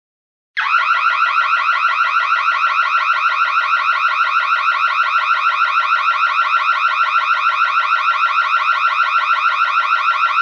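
Electronic burglar alarm sounding loudly: a shrill tone that warbles in rapid, repeated rising sweeps, starting abruptly about half a second in.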